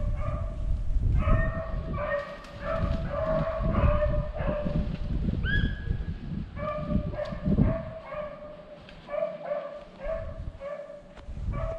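Beagles baying on a rabbit's trail: short, repeated bays of a hound pack, about two a second, with one higher, rising yelp about halfway through. A low rumbling noise runs underneath.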